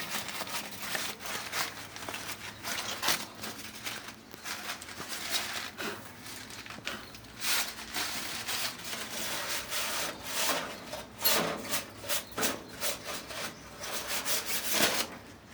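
Wad of newspaper scrubbing the flame-side inner wall of a gas water heater's combustion chamber: repeated rough rubbing and scraping strokes, coming faster near the end before stopping. This is the cleaning of the chamber wall the burner flame hits.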